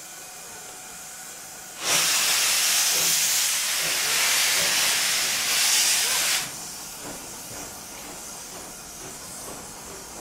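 JNR Class C10 steam tank locomotive No. 8 letting out a loud blast of hissing steam as it starts off. The hiss begins suddenly about two seconds in and cuts off sharply some four and a half seconds later.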